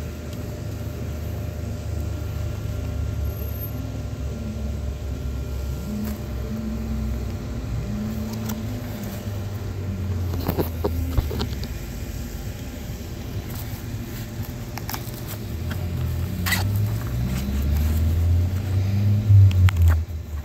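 A low, engine-like rumble with a wavering pitch, growing louder near the end. A few sharp clicks about halfway through and again near the end.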